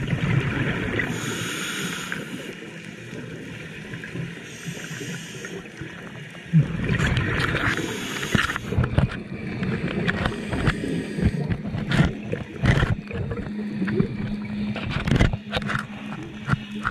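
Underwater scuba breathing through a regulator: hissing inhales alternate with gurgling, rumbling bursts of exhaled bubbles, the largest about six and a half seconds in. From about nine seconds on, irregular sharp clicks and knocks sound over the breathing.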